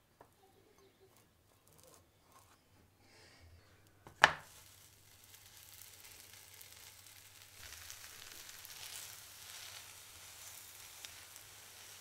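Faint scrapes of a knife spreading mayonnaise on bread, then one sharp knock about four seconds in, then steady sizzling from a slice of bread toasting in a hot frying pan, growing louder about halfway through.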